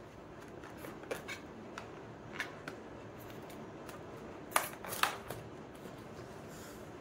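Long latex balloon being squeezed and pressed by hand, giving soft rubbing and handling noises with a few short sharp rubs of latex, the two loudest about four and a half and five seconds in.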